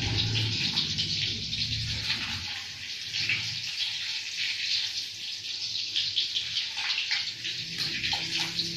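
An egg frying in hot oil in a small wok, sizzling and crackling steadily, with a spatula scraping and tapping the pan a few times near the end. A low hum under it dies away about two and a half seconds in.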